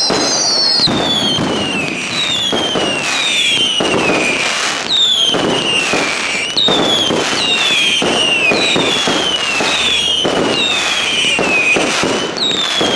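Fireworks display: a rapid series of whistling fireworks, each whistle falling in pitch, about one a second, amid sharp pops, bangs and crackling.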